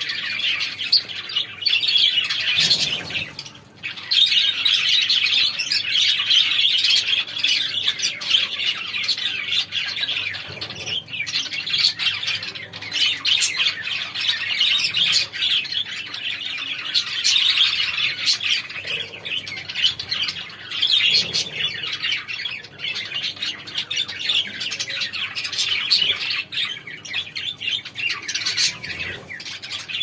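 A flock of budgerigars chattering and chirping continuously, many birds calling over one another, with a brief lull about three seconds in.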